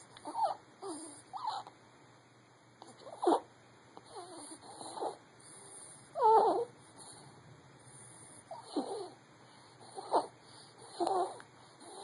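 A young baby's noisy breathing: about ten short squeaky grunts and snuffles, one every second or so, the loudest about six seconds in.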